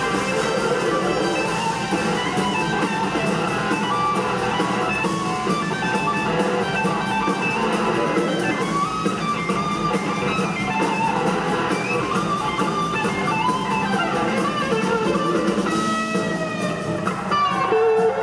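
Live rock band playing an instrumental jam: an electric guitar plays lead over a drum kit keeping a steady beat.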